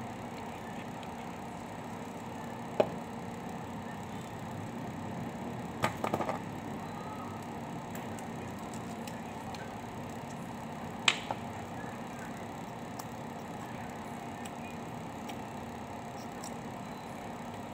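Sharp clicks and taps of a laptop blower fan's plastic housing and metal tools being handled: one about three seconds in, a quick cluster of clicks around six seconds, and another around eleven seconds, followed by a lighter one. A steady room hum and hiss runs underneath.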